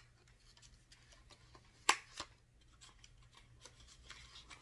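Faint handling of a small cosmetic package: light ticks and rustling, with one sharp click about two seconds in and a softer click just after it.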